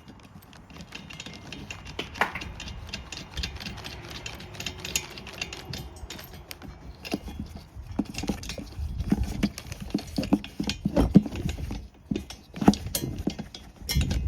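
Irregular clicks, knocks and rattles of metal hardware being handled and fitted onto a bike-rack bolt (nut, spring washer, flat washer and plastic knob), with rubbing and handling noise underneath. The knocks come thicker and louder in the second half.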